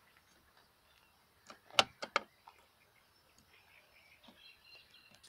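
Three sharp clicks in quick succession about two seconds in, from hands working the bait hopper of a Red Boat carp bait boat as it is loaded.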